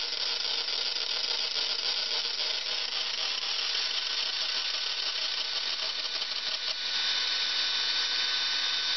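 Electric drill running steadily, its twist bit cutting into the head of a seized stainless-steel fairing screw to drill the head off. About seven seconds in the whine gets louder.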